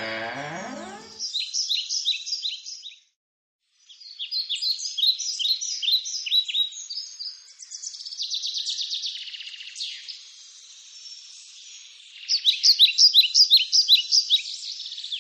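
Birdsong: a songbird repeating runs of quick, high chirping notes and trills, with short pauses between phrases. The song is loudest near the end and drops out completely for under a second about three seconds in. Music fades out in the first second.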